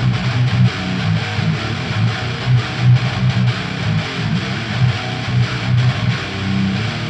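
Distorted 7-string electric guitar in 16-tone tuning, playing a chugging low riff through a Peavey Bandit 112 amp into a Crate GC-412TR oversize cabinet loaded with Peavey Scorpion 12-inch speakers and a Peavey Studio Pro 40 speaker, miked with an SM57.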